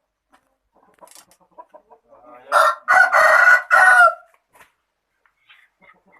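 A rooster crows once, a loud call of about a second and a half in three parts with a long middle note, starting about two and a half seconds in. A few faint clucks come before it.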